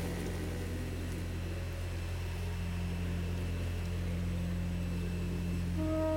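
Film score: a low, steady sustained drone, with a held brass note coming in near the end.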